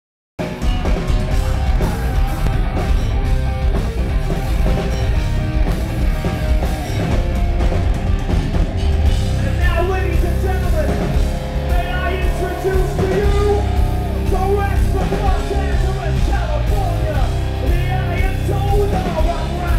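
A live rock band playing loudly, with drums, bass guitar and electric guitar, the low end heavy and dominant.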